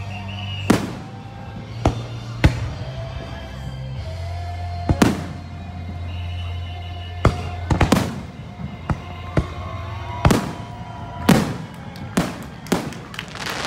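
Fireworks display: aerial shells bursting with sharp bangs, a few seconds apart at first and coming faster near the end.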